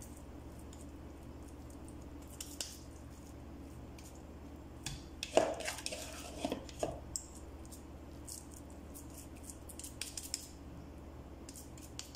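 Hands shaping raw minced beef into patties: small pats and squishes of the meat, with a cluster of knocks and scrapes against the mixing bowl about halfway through as more meat is scooped out.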